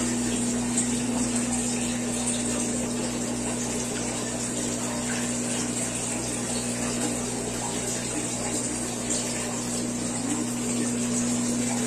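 Aquarium pump running with a steady low hum under an even hiss of circulating, bubbling tank water.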